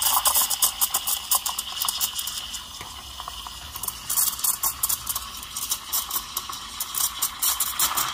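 Quick Mill Rubino's steam wand hissing in a jug of milk as it froths the milk, with a rapid, irregular crackle running through the hiss.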